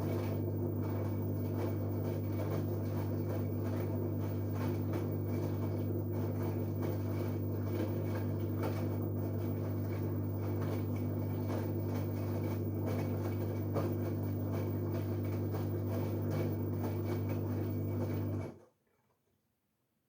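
LG Direct Drive 8.5 kg washing machine running with a steady hum, which cuts off abruptly near the end.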